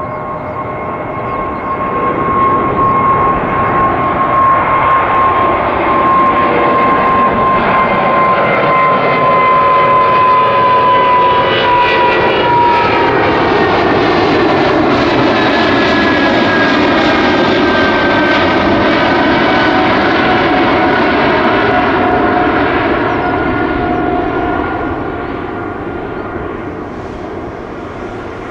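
Boeing 777-200ER's twin turbofan engines at climb-out thrust as the airliner passes overhead. A loud, steady jet sound builds up, with a whine from the engine fans that drops in pitch about halfway through as the aircraft goes past. It then fades as the jet climbs away.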